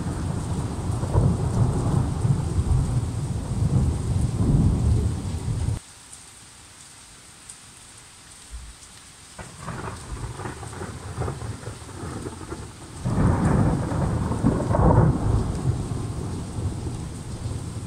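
Thunder rumbling over steady rain. The rumble cuts off abruptly about six seconds in, leaving quieter rain, and a second roll of thunder comes in about thirteen seconds in and slowly dies away.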